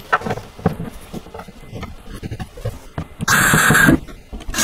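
Light knocks and taps of melamine-faced particleboard panels being handled, then a short, loud scraping rustle just after three seconds in.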